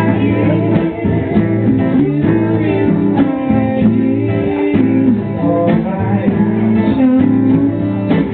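Live instrumental duo of cello and guitar: plucked guitar notes under sustained cello lines that slide between pitches.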